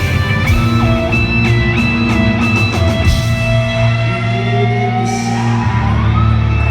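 Live hard rock band playing loudly: a distorted electric guitar lead with string bends and a long, slowly rising note, over bass and drums with cymbal hits.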